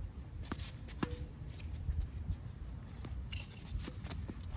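Tennis rally on an outdoor hard court: a string of sharp pops from racket strings hitting the ball and the ball bouncing, spaced roughly a second apart, the loudest about a second in, over a steady low rumble.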